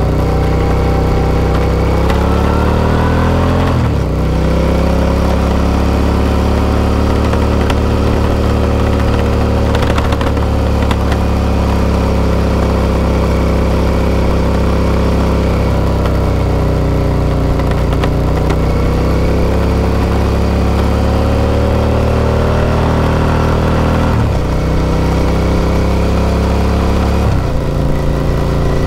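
V-twin motorcycle engine heard from the rider's seat. It revs up, shifts up about four seconds in, then runs steadily at cruising speed with small rises and falls in pitch, and changes gear again near the end.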